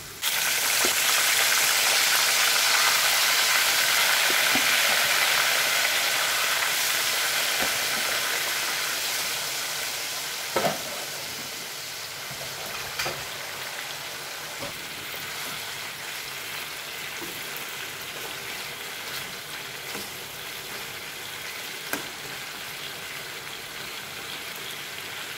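Hot oil sizzling as sliced onions, then chicken pieces, deep-fry in an aluminium pot, stirred with a slotted spoon. The sizzle is loudest for the first several seconds and settles quieter after about ten seconds, with a few sharp clicks.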